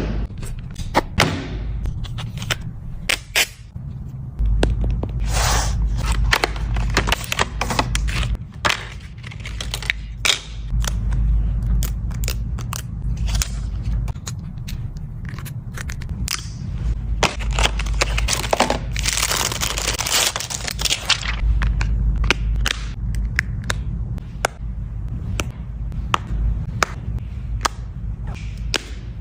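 Phone packaging being handled and opened: plastic crackling, cardboard scraping and many sharp clicks and taps, with a longer rustling stretch about twenty seconds in, over a steady low hum.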